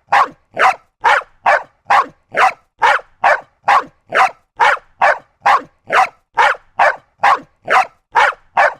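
Small dog barking in a steady, unbroken run of short, sharp barks, just over two a second, evenly spaced.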